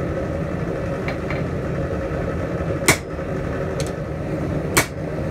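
Blacksmith's hammer striking a red-hot steel spatula blank on an anvil: a few light taps, then two loud, sharp blows about two seconds apart, over a steady drone.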